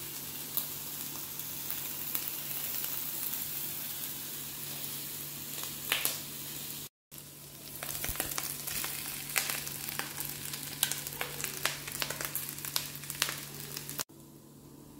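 Food frying in hot oil in a pan, sizzling steadily, with a spatula stirring and clicking against the pan in the second half. The sound cuts out briefly about seven seconds in and turns quieter just before the end.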